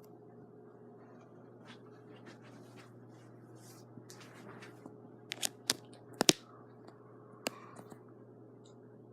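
Mainstays hugger ceiling fan running steadily on low speed with a low, even hum. A handful of sharp clicks or taps come in the middle, the loudest a little past six seconds in.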